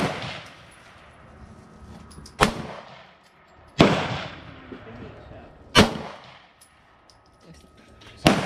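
Gunshots on an outdoor range, about five of them a second or two apart, each sharp crack trailing off in an echo. The nearest is a handgun fired by a shooter on the line.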